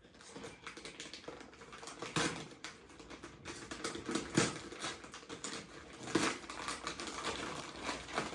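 Gift-wrapping paper being pulled and torn open by hand, irregular crinkling and crackling with a few louder rips about two, four and six seconds in.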